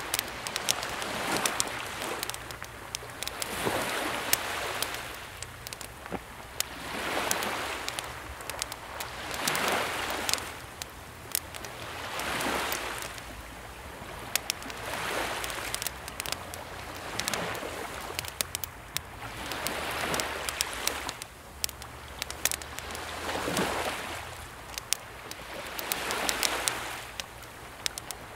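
Small waves of a calm sea washing in about every two and a half to three seconds, with the sharp crackles and pops of a burning wood campfire throughout.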